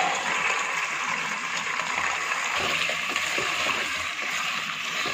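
Raw chicken pieces sizzling steadily in hot oil in a pot as they are stirred with a wooden spoon, with a few soft knocks of the spoon against the pot.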